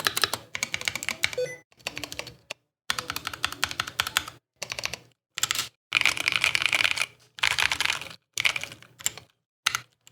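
Typing on a Mountain Everest 60 mechanical keyboard with pre-lubed Mountain switches: fast runs of key clicks and clacks in several bursts, separated by brief silent gaps.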